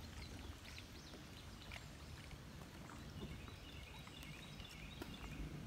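Faint open-air river ambience: a steady low rumble with faint bird chirps, a short run of high notes about three seconds in.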